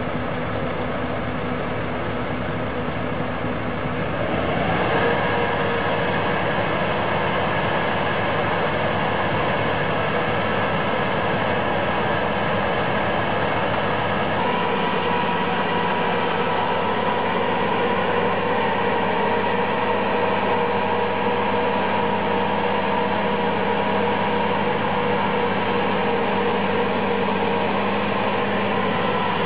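Steady machinery noise: a continuous hiss with a mechanical hum. It grows louder about four seconds in, and the hum shifts to a higher steady tone around fourteen seconds.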